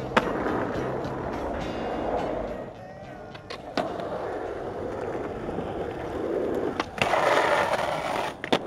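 Skateboard wheels rolling on asphalt, with sharp clacks of the board at pops and landings. Near the end the truck scrapes along a concrete ledge in a grind, followed by a clack at the landing.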